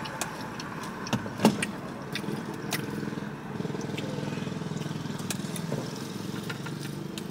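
A few sharp taps and clicks as a hot sauce bottle is shaken over a fried chicken wing, then a steady low hum in the car cabin.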